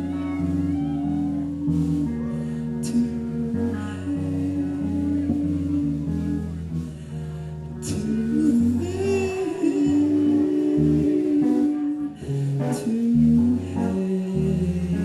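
Live indie rock band playing, with guitars and drums under a sung vocal line and cymbal crashes now and then.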